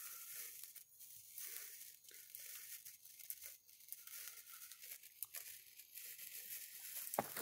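Electric gold bamboo sparkler burning: a faint, steady fizz with scattered small crackles.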